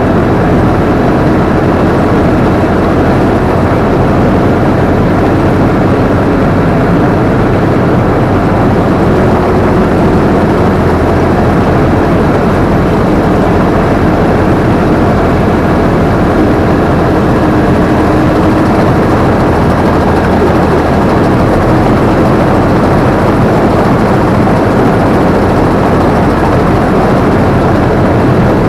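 Combine harvester's engine and threshing machinery running steadily under load, heard loud and close from the operator's position, with a constant low hum beneath the noise.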